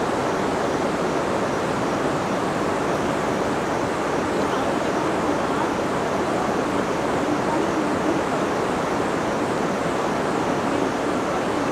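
River water rushing, a steady even noise with no breaks.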